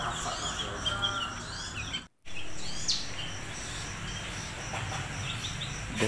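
Many small caged songbirds chirping and twittering at once, short high calls overlapping one another. The sound drops out for an instant about two seconds in.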